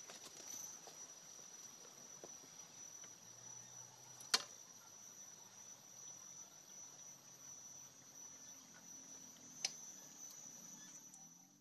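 Insects keeping up a steady high-pitched trill, with two sharp clicks, one about four seconds in and one near the ten-second mark.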